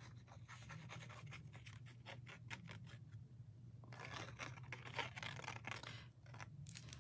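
Tip of a liquid glue bottle scratching across embossed cardstock in faint, irregular strokes as glue is squeezed out in squiggles, busiest from about four to six seconds in. A steady low hum sits underneath.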